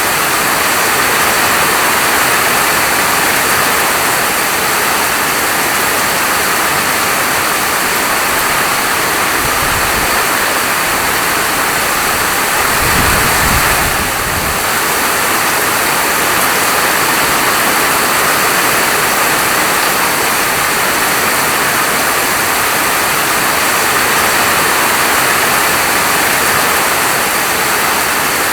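Steady falling rain, an even loud hiss, with a brief low rumble about halfway through.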